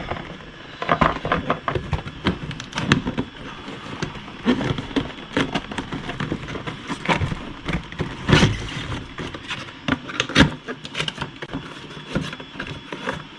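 Box contents and packaging being handled and taken out: irregular scrapes, knocks and clicks of varying strength.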